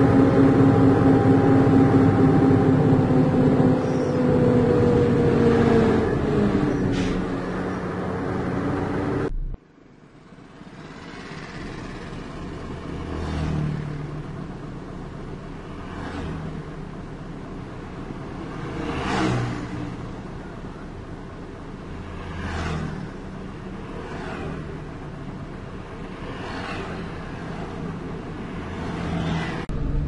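Vehicle engine running steadily, heard from inside the cab while driving, its pitch dropping a little as it slows. After an abrupt cut about nine seconds in comes road traffic, with motorcycles, a bus and trucks passing in several swells.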